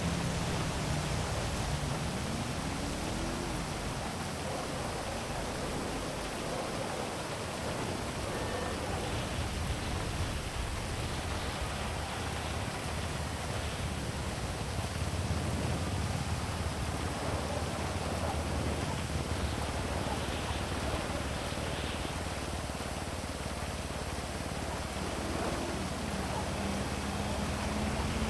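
Heavy rain falling in a steady hiss over a city, with a low traffic rumble underneath. An engine note rises in pitch twice, about two seconds in and again near the end.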